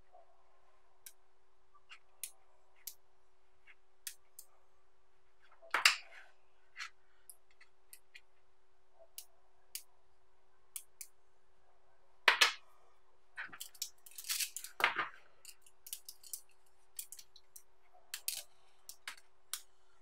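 Small neodymium magnetic balls clicking as they are pulled off a chain by hand and snapped together into clusters: scattered sharp clicks, a louder snap about six seconds in and another about twelve seconds in, and a quick run of clicks around fourteen to fifteen seconds.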